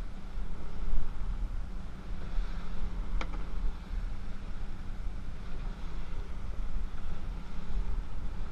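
Twin outboard motors running steadily at speed, a low hum, with wind buffeting the microphone and water rushing past the hull. A single sharp click about three seconds in.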